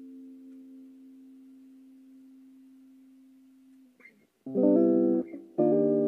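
Tokai ES-60 semi-hollow electric guitar. A held chord rings and slowly fades away over about four seconds. After a brief scratch of the strings, loud, clipped strummed chords start about four and a half seconds in, roughly one a second.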